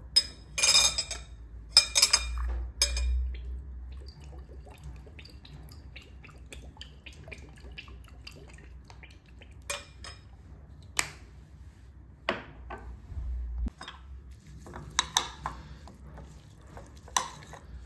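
A metal spoon clinking against a ceramic bowl while soy sauce is mixed into chopped greens: scattered sharp clinks with a short ring, several close together near the start and again near the end.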